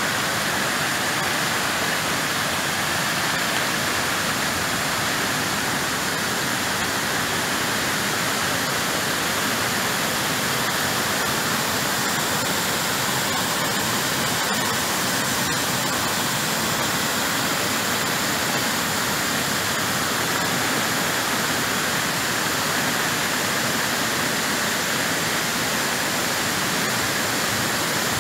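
Muddy rainwater runoff rushing down a washed-out dirt road and pouring over its broken edge like a waterfall: a steady, unbroken rush of water.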